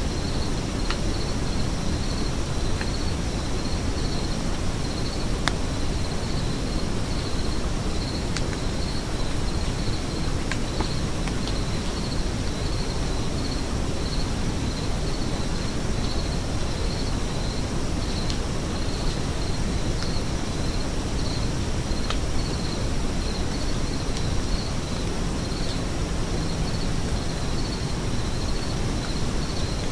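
An insect chirping in a steady, evenly repeating pulse over a constant outdoor hiss and low rumble, with a few faint scattered ticks.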